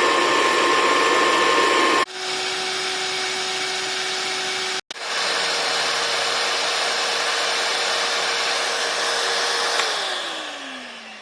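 Vacuum cleaner motors running with a steady whine, changing abruptly about two seconds in and breaking off briefly near five seconds. About ten seconds in, the last one is switched off and its whine falls in pitch and fades as the motor spins down.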